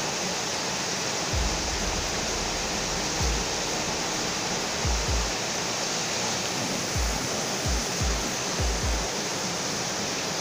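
Electric hand mixer running steadily with a constant whirring hiss, its beaters whipping eggs in a bowl until fluffy. Several short low thuds come at irregular moments.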